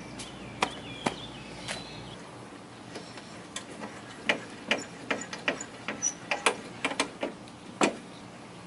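Benchtop table saw's blade-height mechanism clicking as the blade is cranked up, about four sharp, irregular clicks a second.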